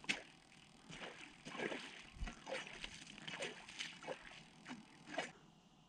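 Faint, irregular knocks and scrapes, about one or two a second, of an ice chisel chipping a hole through the ice.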